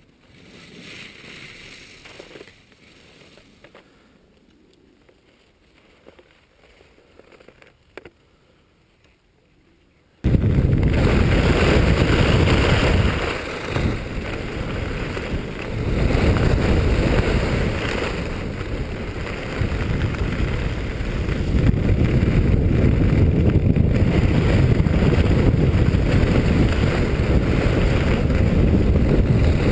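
Quiet for about ten seconds with a few faint knocks and scuffs, then a sudden loud rushing noise as the skier sets off downhill: wind buffeting the camera's microphone mixed with skis running over groomed snow, steady with a couple of brief dips.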